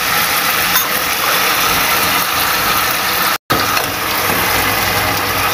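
Fried tilapia pieces sizzling in a pan of hot fish-sauce glaze, a steady sizzle that cuts out for an instant about three and a half seconds in.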